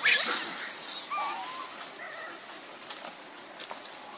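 Macaque calls: a loud, high-pitched squeal that arches up and then down in pitch during the first second, followed by a few short, fainter chirps.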